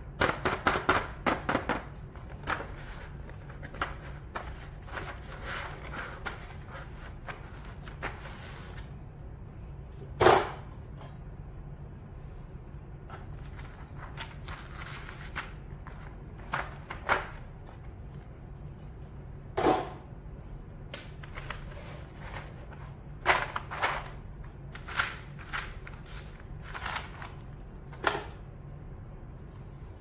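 Handling noise of keyboard parts and a packaging box on a desk: a quick run of small clicks at the start, then scattered single knocks and clacks, the loudest about ten seconds in, over a steady low hum.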